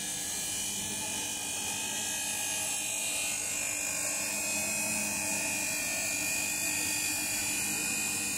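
A motor running steadily: a continuous hum with a thin high whine held above it.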